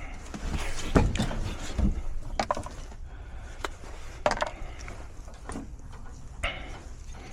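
A few separate knocks and clinks of hard parts being handled and set down, about five over several seconds, as a furnace gas valve and its fittings are worked on by hand.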